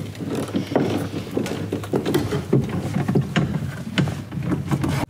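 Screwdriver scraping and clicking on a screw and the surrounding metal in a tight spot behind the dash, with hands and parts rustling and knocking in irregular small strokes over a low steady hum.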